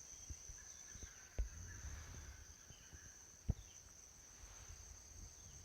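White-bellied woodpecker's beak pecking wood in scattered, irregular knocks, two louder strikes about a second and a half in and again near three and a half seconds, over a steady high-pitched insect drone.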